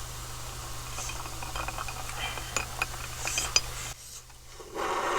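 Utensils and dishes clinking and scraping, with a run of sharp clinks in the middle, consistent with rice being scooped into a bowl. A short rush of noise follows near the end.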